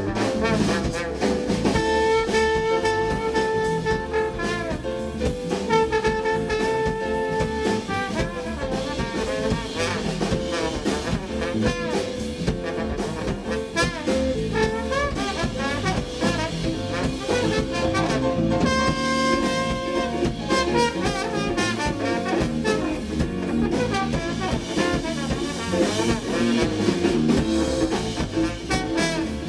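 Live jazz-funk band playing an instrumental: a horn section of trombone, trumpet and alto saxophone over drum kit, bass, guitar and keyboard. The horns hold long notes a couple of seconds in, then the band plays on.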